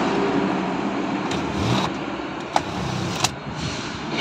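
Steady engine and road noise inside the cab of a moving Volvo FH truck, with two sharp clicks about two and a half seconds in, under a second apart.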